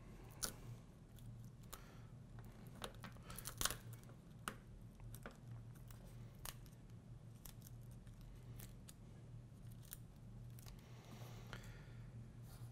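Faint, scattered clicks and small crackles of a nylon spudger prying an iPod touch 4th generation's display glass away from its adhesive and metal frame, over a low steady hum.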